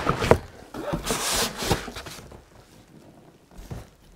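Cardboard packaging being handled as a tripod wrapped in a plastic bag with foam end blocks is slid out of its box. There are a few light knocks at first, then a scraping rustle about a second in, followed by softer handling noise.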